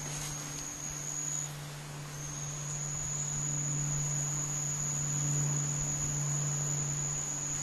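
An insect buzzing on one continuous high-pitched note, breaking off briefly about a second and a half in and then resuming. Under it is a steady low hum that grows a little louder midway.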